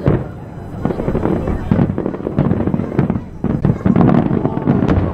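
Aerial fireworks bursting: a rapid, irregular string of sharp bangs over deep booms.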